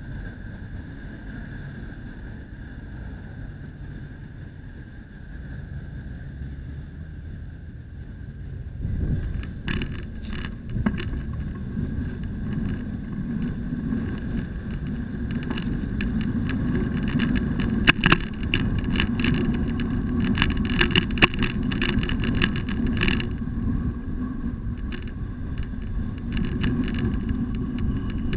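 Street traffic around a waiting bicycle, then from about nine seconds in a louder rumble of wind and road noise on the bike-mounted camera as the bicycle rides off, with many sharp rattling clicks over the next dozen seconds.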